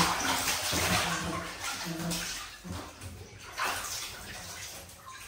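Bathwater splashing and sloshing in irregular surges as someone is washed, loudest in the first half and fading toward the end.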